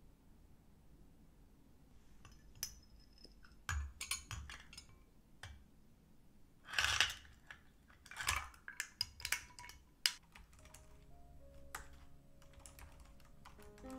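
A long metal spoon clinking and tapping against a glass while stirring a milk drink, with a short rustle in the middle. About ten seconds in, light background music starts and laptop keys are typed on.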